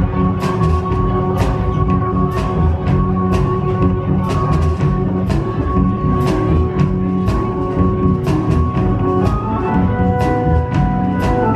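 Live rock band playing an instrumental passage: a drum kit keeps a steady beat with cymbal and snare hits about two a second under held sustained notes, which move to new pitches near the end.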